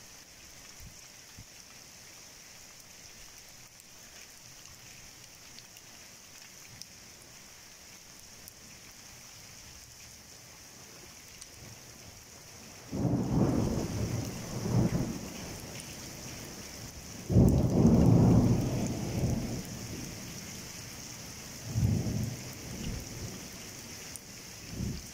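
Steady hiss of heavy rain in a thunderstorm. About halfway through, thunder comes in as a series of loud, deep rolling rumbles; the longest and loudest lasts about two seconds, and two smaller ones follow.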